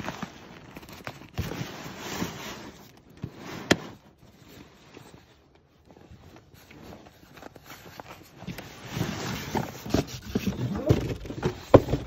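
Canvas bell-tent bag being hauled out of a cardboard shipping box: rustling and scraping of canvas against cardboard, with a sharp knock about four seconds in. After a brief lull, a run of scrapes and knocks near the end as the heavy bag is laid down on a wooden table.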